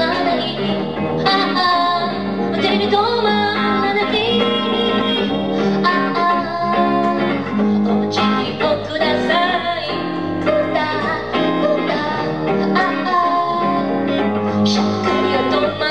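A pop song with guitar and singing.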